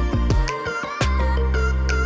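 Background music with a steady drum beat, deep bass and a melody line.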